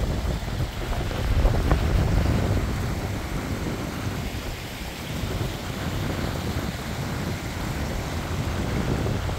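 Wind buffeting the microphone in a steady low rumble, over the rush of a small mountain stream running between rocks.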